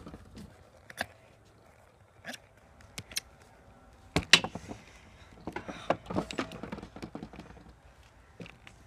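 Scattered handling clicks and knocks, with a louder knock about four seconds in and a run of small knocks a little later.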